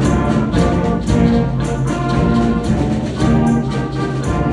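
Orchestral music led by brass, with a steady beat.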